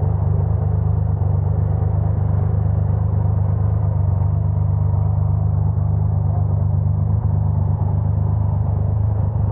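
Motorcycle engine idling steadily with an even, smooth low rumble, no revving.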